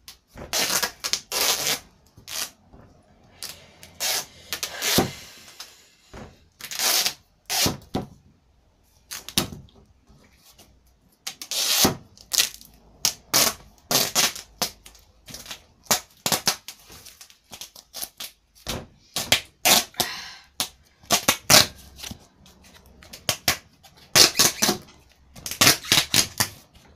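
Duct tape being pulled off the roll and wrapped around a football: a run of irregular rips and crackles. Some are short snaps and some are drawn out for about half a second to a second.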